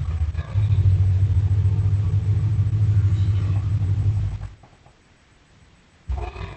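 Deep, low rumbling growl of a giant film monster sound effect, lasting about four and a half seconds before it stops; after a short pause another one begins near the end.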